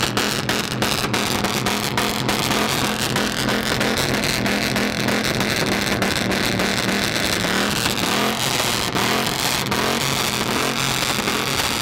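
Ford F-150 pickup engine running through a loud exhaust, its revs climbing a few seconds in and easing back down near the end, with crackles in the exhaust note.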